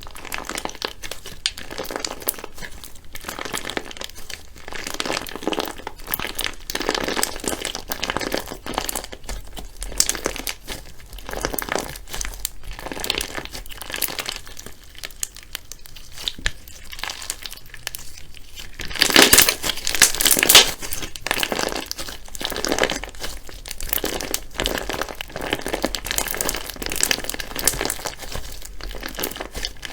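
Slime being handled and squished, a steady run of sticky crackling and popping that gets loudest for a couple of seconds about two-thirds of the way through.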